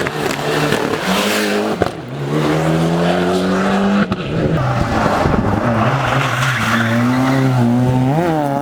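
Rally car engine at full throttle, its pitch climbing through a gear with a shift about four seconds in, then pulling again. A quick rev blip comes near the end.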